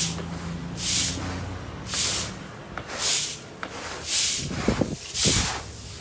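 Broom swishing over paving stones, sweeping loose drying rice grain in regular strokes about once a second.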